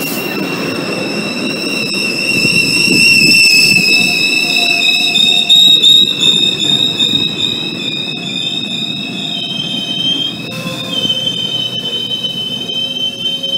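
GO Transit bilevel passenger coaches rolling past the platform, with a loud high-pitched metal squeal of several wavering tones over a low rolling rumble. The squeal is loudest near the middle, where a few sharp clicks come through.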